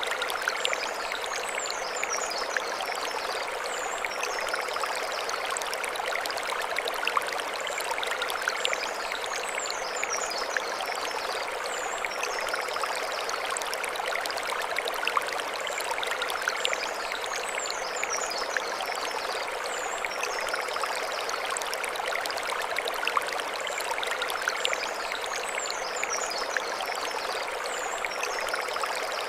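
Mountain stream running over stones: a steady, even rush of water with fine splashing detail. A short high chirping phrase recurs about every eight seconds above the water.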